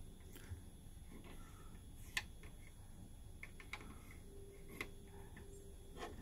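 A few faint, scattered clicks over quiet room hiss: buttons being pressed on a stage-lighting control panel. A faint steady hum comes in briefly past the middle.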